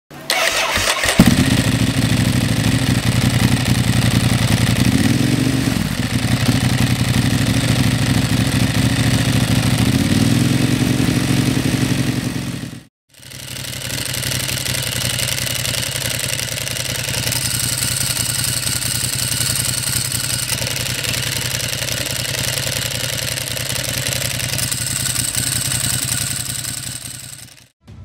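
Ducati Hypermotard 1100 EVO's air-cooled L-twin starting about a second in and idling, with two light throttle blips. After a short break it idles steadily again.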